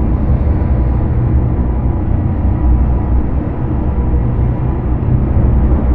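Dark ambient soundscape: a deep, steady rumbling drone with a haze of hiss above it and no beat.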